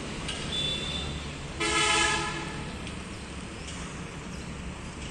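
A vehicle horn honks once, a single blast of just under a second, over a steady low background rumble.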